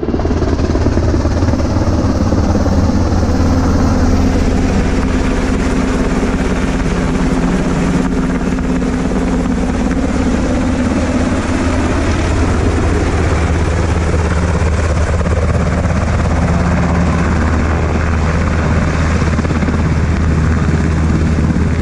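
UH-60M Black Hawk helicopter flying low over a field: loud, steady rotor and turbine noise with a deep hum that runs unbroken throughout.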